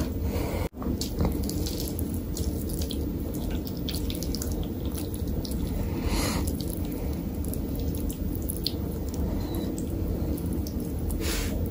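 Close-miked wet eating sounds: fingers squishing through curry-soaked rice and tearing mutton off the bone, with chewing and lip smacks heard as many small wet clicks over a steady low background noise.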